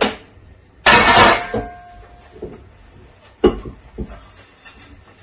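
Kitchenware being handled: a loud clatter about a second in that leaves a brief metallic ring, then a single knock about three and a half seconds in.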